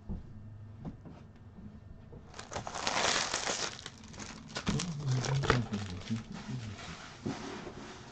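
Crinkling of plastic wrappers and trading cards being handled. The loudest stretch is a dense crinkle about two seconds in, followed by scattered sharp clicks of cards and packaging.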